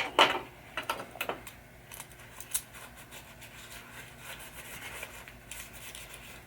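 Small metal parts of a pinball saucer kicker assembly clicking and clinking as they are handled: a few sharp clicks in the first second and a half, then lighter ticks and soft rubbing.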